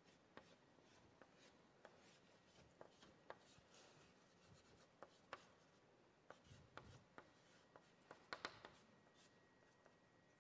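Faint scratching and tapping of white chalk on a black drawing board as it is stroked and smudged by hand, with a quick cluster of strokes near the end.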